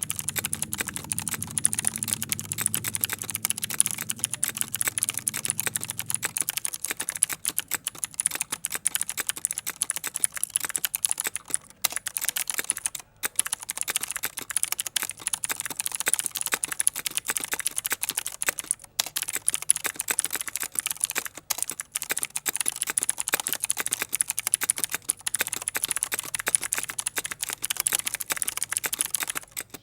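Rapid typing on a mechanical keyboard with clicky Cherry MX Blue switches, the keyboard resting on a towel that damps it. Dense, continuous key clicks with a few brief pauses.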